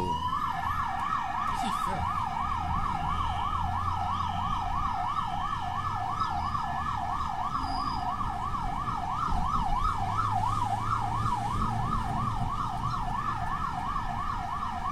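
Emergency vehicle siren on a fast yelp, its pitch sweeping up and down about four times a second, over low road and engine rumble.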